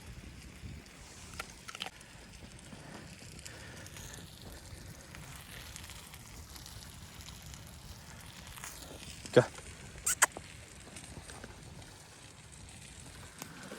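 A few sharp knocks over a low, steady background: one loud knock about nine seconds in, then two quick lighter ones a second later.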